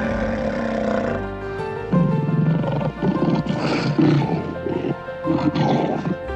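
A lion growling in a series of rough pulses starting about two seconds in, over steady background music.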